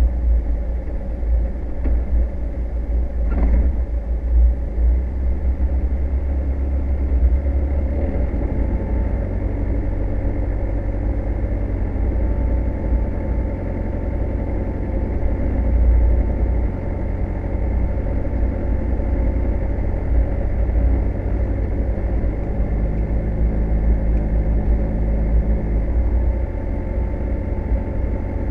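Car driving slowly, its engine humming over a steady low road and body rumble, with a brief knock about three and a half seconds in.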